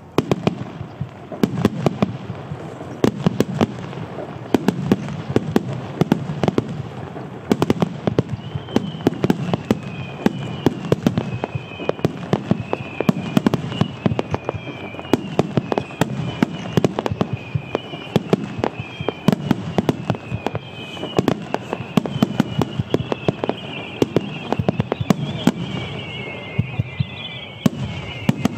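Large starmine, a rapid-fire barrage of aerial firework shells, going off continuously: dense overlapping launch thumps and burst bangs with deep booms. From about a third of the way in, whistling shells add a string of falling whistles, one after another, that grow thicker near the end.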